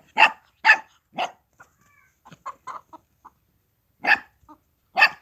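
A hen squawking in alarm and a dog barking at it. Loud short calls about half a second apart at the start, softer scattered clucks in the middle, then loud calls again near the end.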